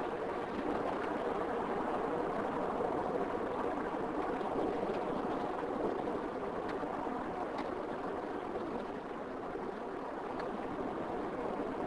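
Steady road and tyre noise of a car driving on tarmac, an even rushing sound with a few faint ticks.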